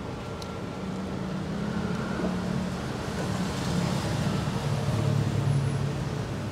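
Street traffic: steady road noise with a vehicle engine humming louder past the middle and then easing off.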